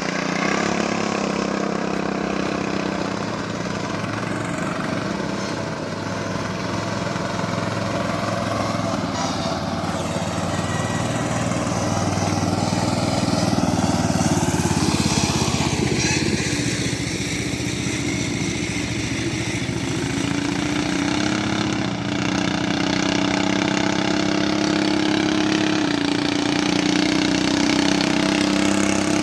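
Riding lawn mower engines running steadily at speed as they race, the pitch easing and rising a little with the throttle.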